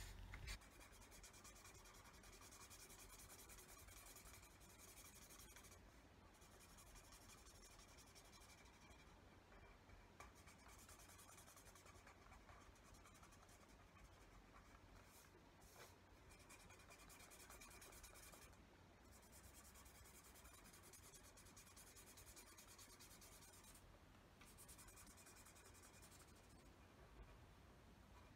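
Faint scratching of a felt-tip pen colouring in on paper, in continuous strokes broken by a few short pauses.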